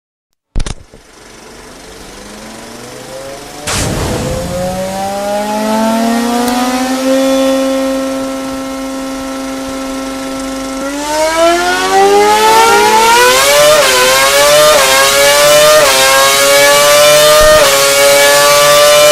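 Formula 1 2.4-litre V8 engine starting up: a sharp click, a rising whirr, and a bang about four seconds in as it catches. It then holds a steady high idle and, from about eleven seconds in, revs climb with several small dips in pitch.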